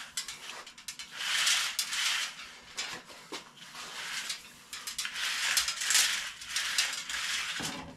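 3/8-inch aluminum tubing pulled from its coil through a bearing-roller tube straightener: a metallic scraping and rattling of the tube running over the bearings, with clicks from the coil. It comes in about three long pulls.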